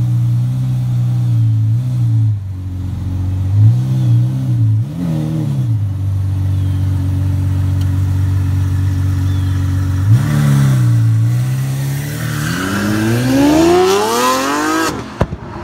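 Lamborghini Aventador's V12 engine idling steadily, with a few short changes in pitch from throttle blips, then accelerating hard with the pitch rising steadily for about three seconds before the sound cuts off abruptly near the end.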